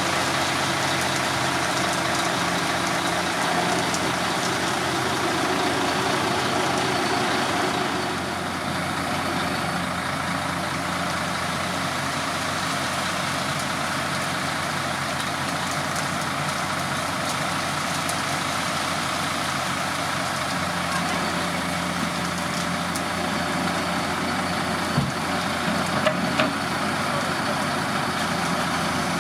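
Mercedes-Benz Actros concrete mixer truck's diesel engine running steadily, driving the Liebherr mixer drum. Its note drops slightly about eight seconds in, and there are a few sharp knocks near the end.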